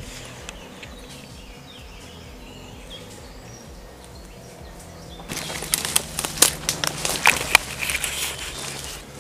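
Leaves and branches rustling and crackling against clothing and gear as a person pushes quickly through woodland undergrowth. It starts abruptly about five seconds in, after a quiet stretch, and is made of many irregular crackles.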